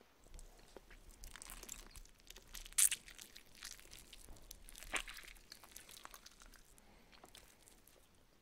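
Close-miked ASMR eating sounds: food crunching and crackling as it is chewed, with two louder crunches about three and five seconds in, dying down toward the end.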